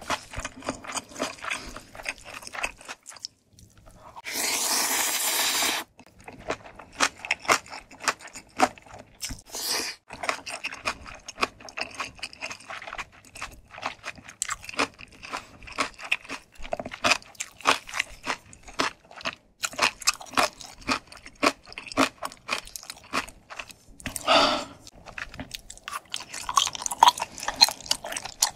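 Close-miked eating of Korean ramyeon with dumplings and rice cakes. Quick chewing runs throughout, with a long noodle slurp about four seconds in and a shorter slurp about twenty-four seconds in.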